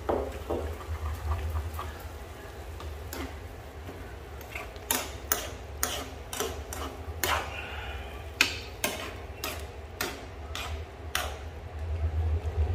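A metal spoon stirring water spinach in a frying pan, knocking and scraping against the pan in an irregular run of clacks from a few seconds in, over a steady low hum.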